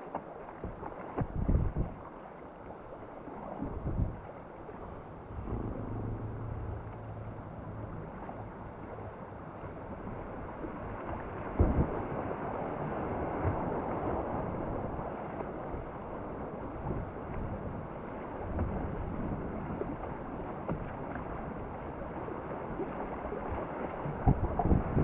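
Rushing river whitewater heard from a kayak, a steady rush of water broken by a few sharp splashes.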